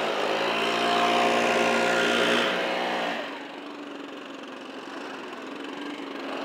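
Backpack leaf blower engine running steadily, then dropping to a quieter, lower running about three seconds in.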